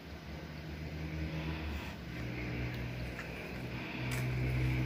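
A low, steady motor rumble, like a vehicle engine running, growing louder about four seconds in.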